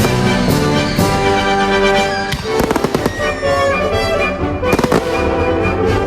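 Aerial fireworks bursting and crackling in quick succession over loud music played for a pyromusical show.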